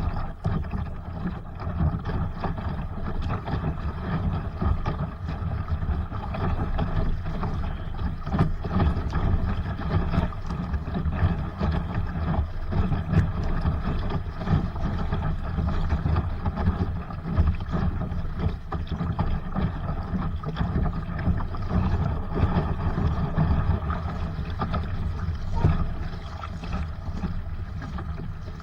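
Wind buffeting the microphone and water rushing and slapping along the hull of a Sunfish sailboat under sail, with a steady low rumble and scattered small splashes.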